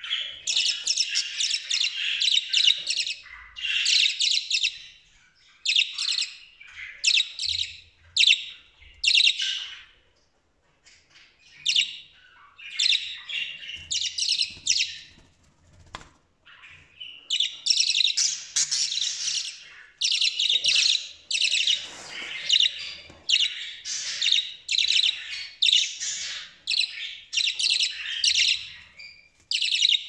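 Young budgerigars chirping and chattering in fast, high bouts, with short pauses about ten and sixteen seconds in.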